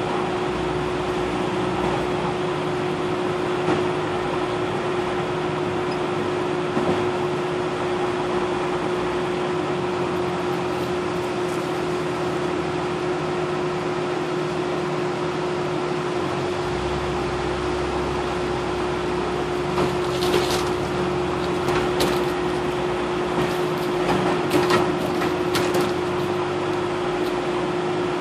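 Off-road vehicle driving slowly along a sandy dirt trail, heard from inside: a steady drone with a constant hum, and a scatter of sharp knocks and rattles about twenty seconds in.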